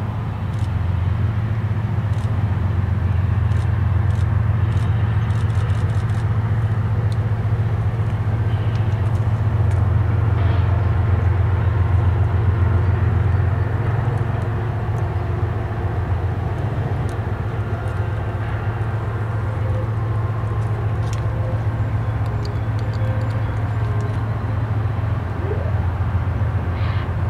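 Diesel freight locomotives running with a steady low rumble as a double-stack container train rolls onto and across a long stone arch bridge.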